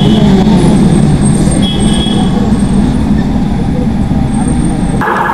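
City bus engine running close by, a steady low rumble with street traffic around it; it cuts off suddenly near the end.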